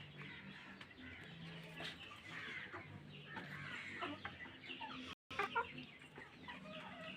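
Six-month-old Brahma chickens clucking softly, with scattered short calls; the sound cuts out for an instant about five seconds in.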